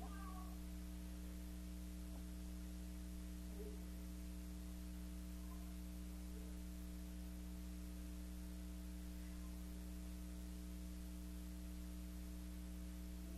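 Steady electrical mains hum with several fixed low tones under a constant hiss, with no speech or singing.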